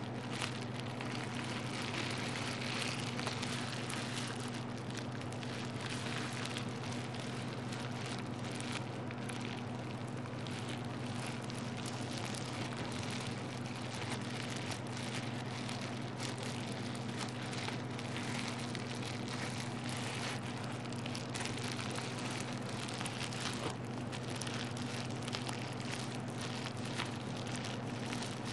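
Bubble wrap crinkled and squeezed between fingers close to the microphone: a continuous dense crackle of fine clicks, over a steady low hum.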